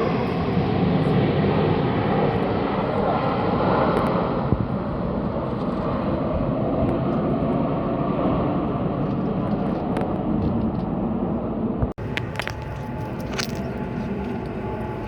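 Jet airliner engines, a loud steady rush. It drops out for an instant about twelve seconds in, then carries on a little quieter with a few clicks.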